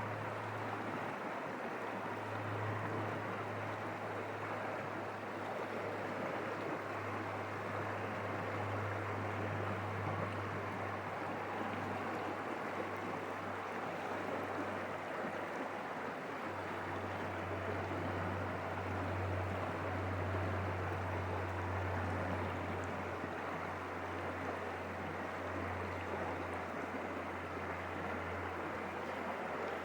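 Small forest stream running over rocks: a steady rush of flowing water with a low rumble underneath.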